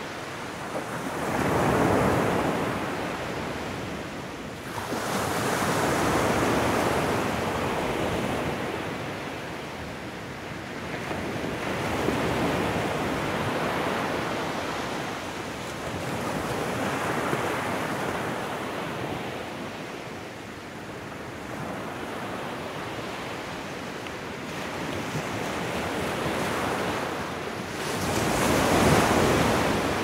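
Ocean surf breaking and washing up a shore, rising and falling in long swells every four to five seconds, the loudest near the end.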